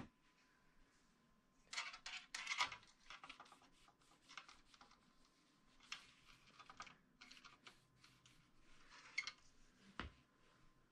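A cloth rag rustling and a fishing rod being handled: scattered short bursts of rustling and light clicks, with a dull knock near the end.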